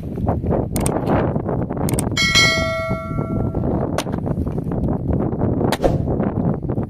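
A bright bell ding starts about two seconds in and rings out for a second or so, the notification-bell sound of a subscribe-button animation. Under it is steady wind on the microphone, with a few sharp knocks of an axe against a log.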